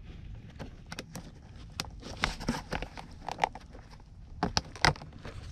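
Gloved hands handling a car's wiring harness and plastic clips: scattered rustling and small clicks, with a couple of sharper clicks about four and a half seconds in.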